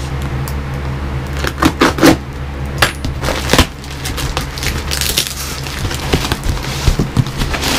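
A cardboard shipping box and its packing being handled: a few sharp knocks and taps in the first few seconds, then crinkling and rustling as the box is moved and opened.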